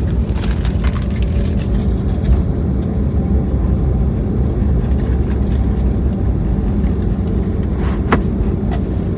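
Cabin noise inside an Airbus A321neo (CFM LEAP-1A engines) rolling on the ground after landing: a steady low rumble from the wheels and the engines near idle. A few light clicks come in the first two seconds, and a sharp knock about eight seconds in.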